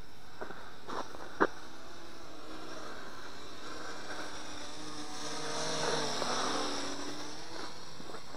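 Small brushed-motor quadcopter (WLToys Q393A) buzzing in flight, its propeller whine swelling and shifting in pitch as it passes close by in the middle. Two short clicks come about a second in, the second one sharp and the loudest sound.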